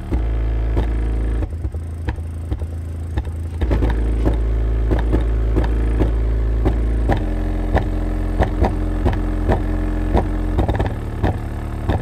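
PowerBass 3XL-810D 8-inch subwoofer playing a bass-heavy song in free air, with no enclosure, driven by about 800 watts at 2 ohms. Deep sustained bass notes change every few seconds, with a regular beat of short clicks on top.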